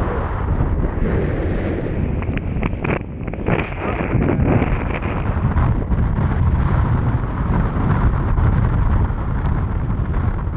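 Heavy wind buffeting the microphone of a small boat running at speed through choppy water, with the hull splashing through the chop. A few seconds in, a short run of sharper splashes and spray hits.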